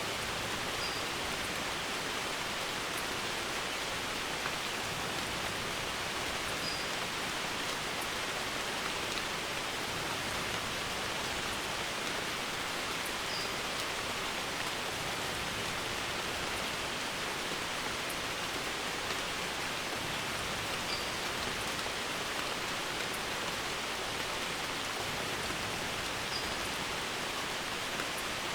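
Steady rain on a barn roof, an even hiss that doesn't change. A faint short high chirp comes every six seconds or so.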